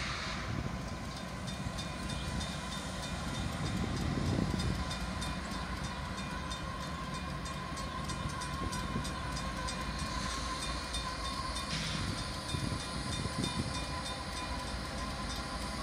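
Freight train led by CSX diesel-electric locomotives approaching, a steady low engine and wheel rumble with a steady tone above it and a rapid, even ticking throughout.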